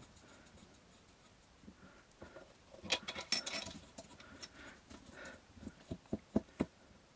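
Small metal parts being handled: a cluster of light metallic clinks about three seconds in, then several short knocks near the end.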